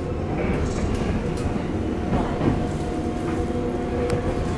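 Electric commuter train running, heard from inside the passenger car as it pulls away from a station: a steady rumble of wheels on rails with a level motor hum and a few light clicks.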